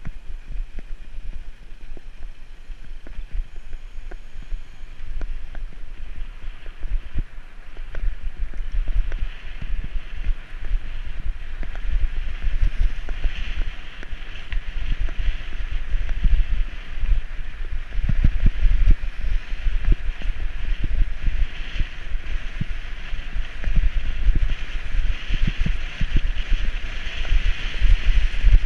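Wind buffeting the microphone of a camera on a moving bicycle, a rumble that swells and dips, over road and tyre noise with frequent small knocks. A hiss grows louder in the second half.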